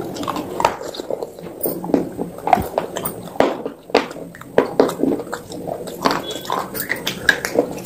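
Close-up biting and chewing of crunchy pale blue finger bars dipped in wet slurry: irregular sharp crunches and crackles, several a second, between softer wet chewing.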